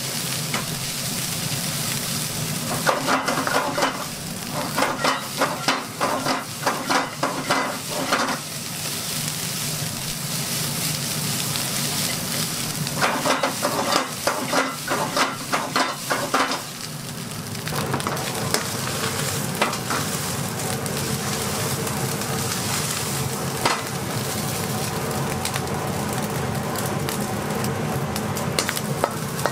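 Rice sizzling as it stir-fries in a wok over a gas flame. A plastic spatula scrapes and tosses it in quick, rapid strokes in two spells: a few seconds in, and again around the middle.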